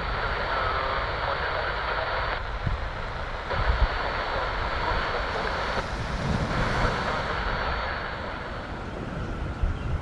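Airbus A340-300 arriving, with the steady rushing jet noise of its four CFM56 engines. Wind buffets the microphone with low rumbles and thumps, and a thin high tone cuts in and out three times.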